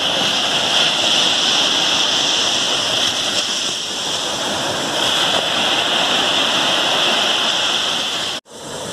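Small waves breaking and washing up the beach: a steady rushing wash of surf that swells and eases a little, cutting out suddenly for a moment near the end.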